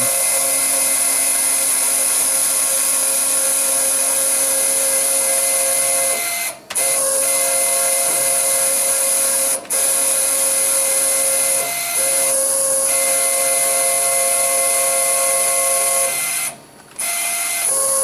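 Stepper motors of a Grizzly G0752 lathe's BDTools CNC conversion jogging the Z and X axes together: a steady electric whine in several fixed tones over a high hiss, stopping briefly about a third of the way in, at about halfway and near the end, the tones shifting slightly each time motion resumes. The steppers are not yet tuned.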